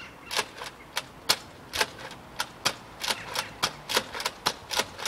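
Nerf Raider CS-35 pump-action dart blaster being rapidly pumped and fired: a quick, slightly uneven series of sharp plastic clacks, about three a second.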